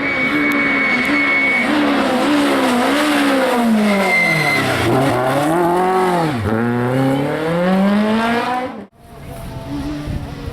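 Citroën AX Kit Car rally car engine at full throttle, revs rising and falling through gear changes and corners, with two deep drops in revs as the driver lifts off. A high-pitched tyre squeal is heard over the first second and a half. The sound cuts off abruptly about nine seconds in, then engine noise returns more quietly.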